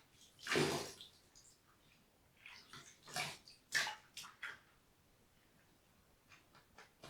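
Water splashing in short, separate bursts: a large splash about half a second in, a quick run of smaller splashes and drips in the middle, and faint drips near the end.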